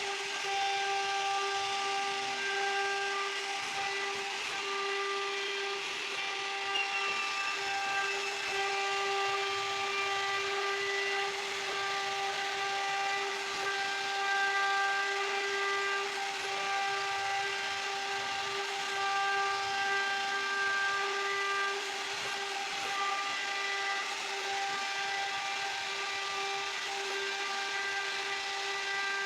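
CNC router spindle running at a steady high whine with overtones over the hiss of the bit cutting wood, swelling and easing slightly as it works.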